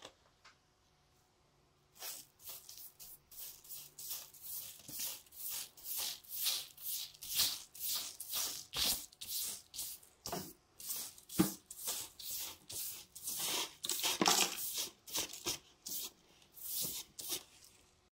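Brush sweeping loose rust flakes and dirt across a hard white surface: quick swishing strokes, about two a second, starting about two seconds in and stopping just before the end.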